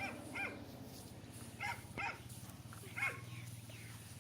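A dog barking: five short, sharp barks, mostly in pairs, over a steady low hum.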